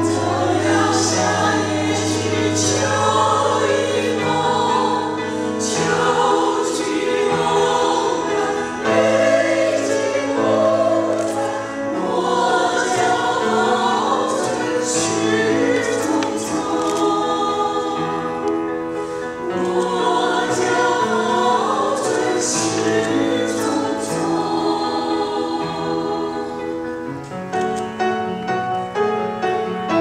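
Women's chorus singing a Chinese-language song in harmony, several voice parts holding and moving between sustained notes.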